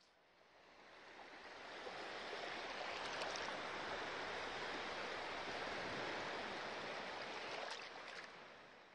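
Sea waves washing on the shore, a steady rushing noise that fades in over the first two seconds and fades out near the end.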